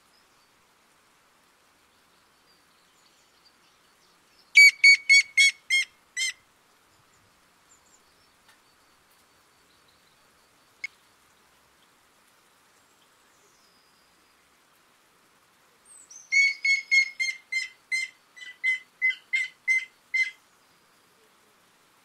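Grey-headed woodpecker singing: two runs of clear whistled notes, a short run of about seven notes about four seconds in and a longer run of about fourteen near the end, each slowing as it goes. A single sharp tick falls between them.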